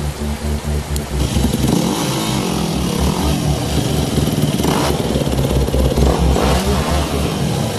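Enduro motorcycle engine revving up and down, from about a second in until near the end, over background music with a steady beat.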